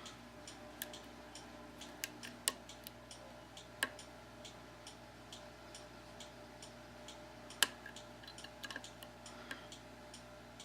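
Faint, irregular metallic clicks of a hook pick working the pin tumblers of an Abus 72/40 padlock, with a few sharper clicks among them, over a low steady hum.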